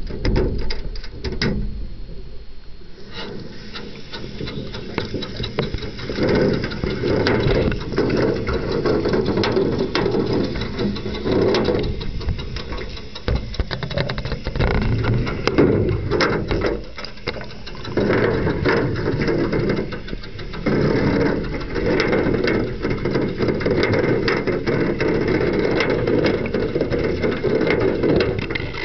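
A darkroom tumble print washer running, with a hard waterproof camera case tumbling inside it, rattling and knocking against the drum. The churning noise swells and dips every few seconds.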